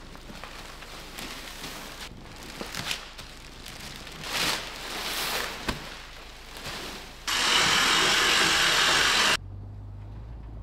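Plastic-wrapped insulation rolls rustling and scraping as they are handled, with a sharp knock a little before six seconds in. Then a loud, even rushing noise lasts about two seconds and cuts off suddenly, leaving a low steady hum.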